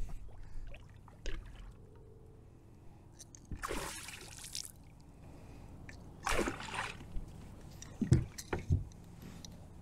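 Water splashing twice beside a kayak as a hooked northern pike thrashes near the boat, followed by two dull knocks near the end.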